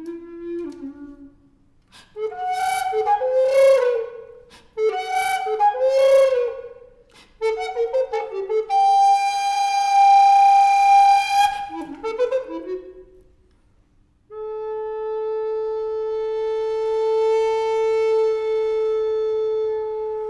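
Tenor recorder in contemporary style: a few sustained notes that bend up and down in pitch, then a long breathy high note. After a short pause, a very steady low note is held to the end.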